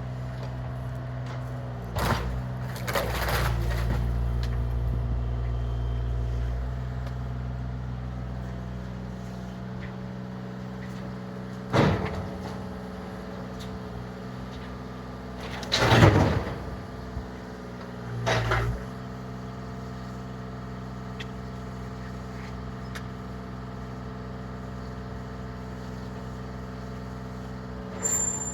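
An engine running steadily, with a handful of loud bangs and crashes over it; the loudest comes about halfway through.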